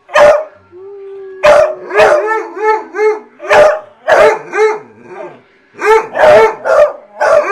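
A beagle and a basset hound howling and baying together: a string of short, loud bays, with one long drawn-out howl starting about a second in that breaks into a warbling yodel before it fades out around three seconds in.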